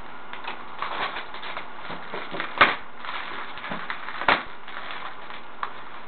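Wrapping paper being torn and crinkled off a boxed present: a run of small crackles, with two sharper rips about two and a half seconds in and again past four seconds.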